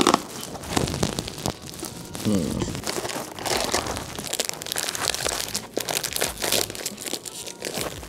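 A plastic snack wrapper crinkling and crackling in the hands, in scattered irregular bursts.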